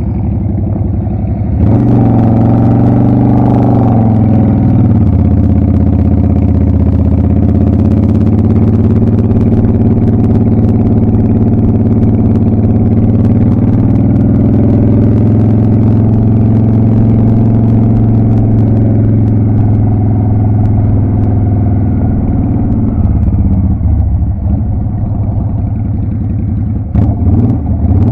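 Motorcycle engine running under way, heard through a helmet camera. The revs rise about two seconds in, settle to a steady lower note a few seconds later, and waver and ease off near the end.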